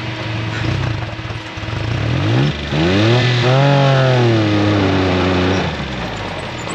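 A vehicle engine revs, rising in pitch and getting louder about two seconds in, then falling back to a lower steady note near the end.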